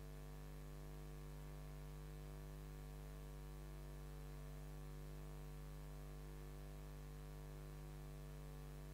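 Steady electrical mains hum: a low buzz with a stack of even overtones over faint hiss.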